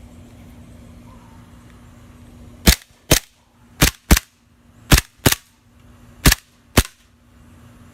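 Airsoft gun firing eight sharp shots in four quick pairs, starting almost three seconds in.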